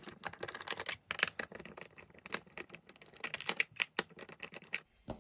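Screwdriver turning out the screws from the bottom of a small electronics case: a rapid, irregular run of small clicks and ticks, with a short break about a second in and another near the end.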